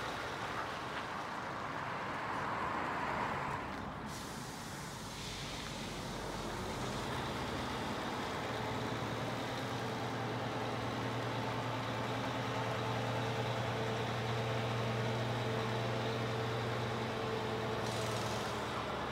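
Scania R480 timber truck's diesel engine running as the truck drives slowly, settling into a steady low hum about eight seconds in. A hiss in the first few seconds cuts off abruptly.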